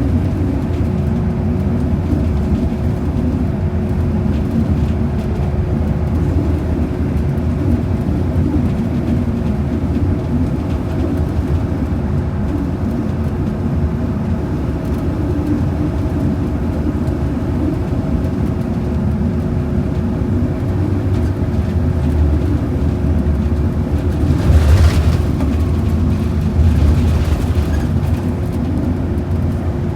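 Cabin noise of a transit bus under way: a steady low rumble of engine and road noise with a constant hum over it. A brief louder rush comes near the end.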